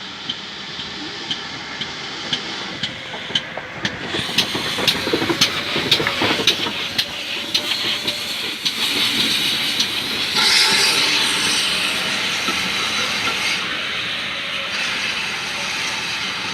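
GWR small prairie 2-6-2 tank locomotive No. 5541 arriving: a run of sharp clicks from the wheels over the rail joints grows louder as it draws near. About ten seconds in, a loud steady hiss of steam starts and eases off a few seconds later.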